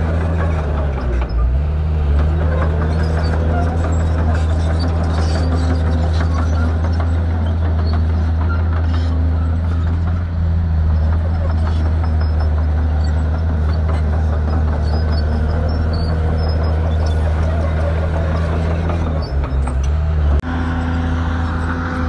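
Diesel engine of heavy earthmoving machinery running steadily with a low droning hum. The engine note changes abruptly about 20 seconds in.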